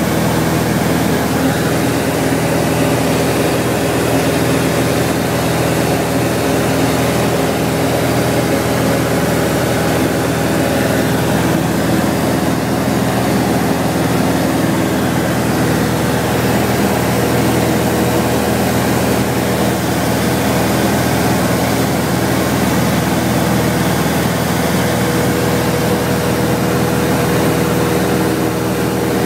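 Robin DR400 light aircraft in flight, its four-cylinder Lycoming engine and propeller droning steadily at cruise power, heard from inside the cabin.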